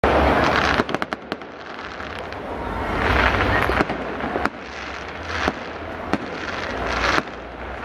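Fireworks display: aerial shells bursting, with many sharp bangs and cracks between swells of hiss, the loudest right at the start.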